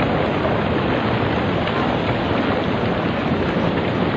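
Muddy floodwater torrent rushing past carrying debris: a loud, steady rushing noise with no breaks.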